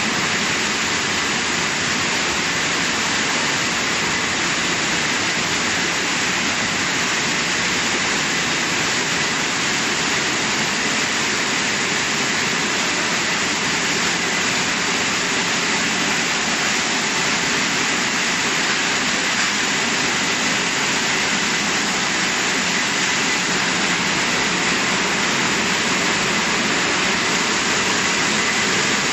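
Vegetable processing line running: a steady rushing noise of air blowers and of water churning in the bubble washer, with a thin steady high whine.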